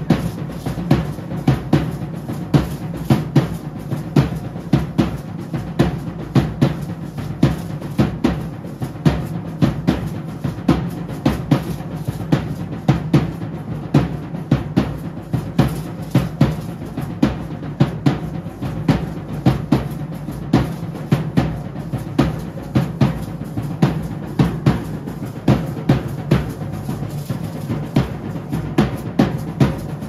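A matachines dance drum beating a steady dance rhythm: a heavy stroke about every two-thirds of a second with lighter strokes between, accompanying a Laguna feather dance.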